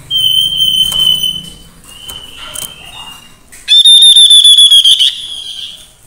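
Tepus lurik babbler calling: a long, steady, high whistle, a few softer whistles, then a louder, quavering whistled note about two-thirds of the way in that drops and fades.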